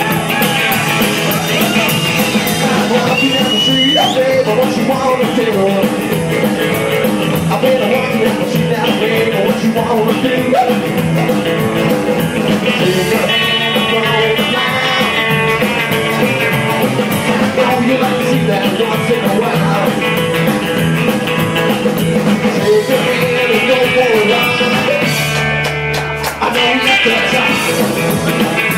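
Live rockabilly band playing loudly, with electric guitar, upright double bass and drums.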